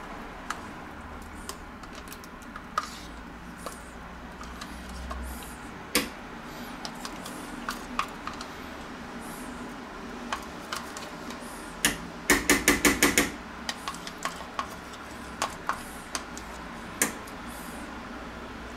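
A small spoon clicking and scraping against a tub of crème fraîche held over a steel pot, in scattered single taps. A little past the middle comes a quick run of about eight sharp taps, the loudest part, as the spoon is knocked clean.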